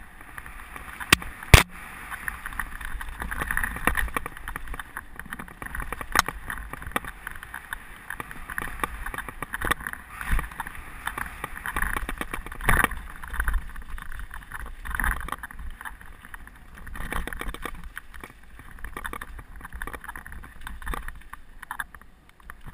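Mountain bike descending a rough dirt trail at speed: tyres rumbling over dirt and stones, and the bike rattling with frequent sharp knocks, with wind on the microphone. A loud sharp knock comes about a second and a half in, another near twelve seconds.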